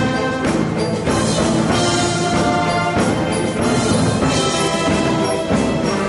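Wind band of brass and percussion, with drum kit, cymbals and chimes, playing a full orchestral arrangement at a steady level.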